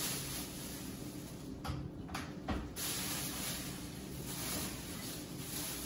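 Thin plastic grocery bags rustling and crinkling as they are handled and unpacked, a steady noisy rustle that drops out briefly twice about two seconds in.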